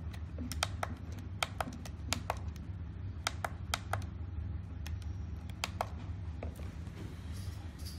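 Push buttons on a smart battery charger's front panel being pressed repeatedly: a series of sharp clicks, many in quick pairs, as the charging modes are stepped through. A steady low hum runs underneath.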